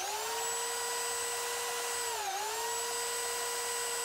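Corded Ryobi belt sander switched on and spinning up to a steady whine while it sands down the lip of a suspension bushing. Its pitch dips briefly a little past halfway, then it comes back up to speed.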